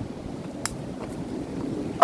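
Strong wind buffeting the microphone: a steady low rumble, with a single sharp click about two-thirds of a second in.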